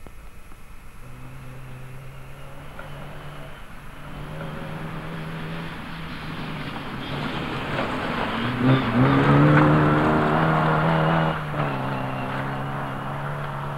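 A rally car's engine approaching at speed, revving up through the gears and growing louder until it passes about two-thirds of the way through. The note drops abruptly as the driver lifts off, then carries on as the car draws away.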